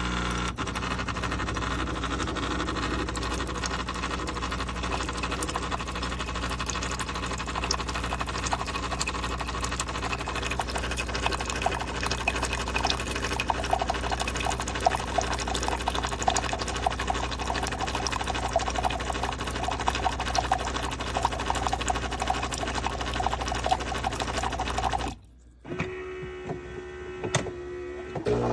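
Super-automatic espresso machine running, a steady mechanical buzz with a dense rapid crackle, cutting off abruptly near the end.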